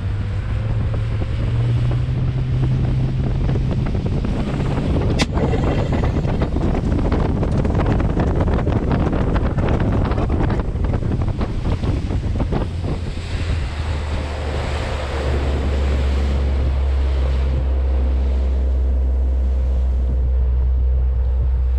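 Small boat's motor running under way, with wind buffeting the microphone and water rushing past the hull; the low engine hum shifts in pitch a little past the middle. A single sharp click about five seconds in.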